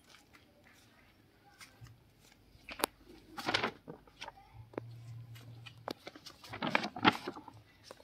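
Faint rustling and handling noises with scattered clicks: a sharp click about three seconds in and two louder rustles, one just after it and one near the end.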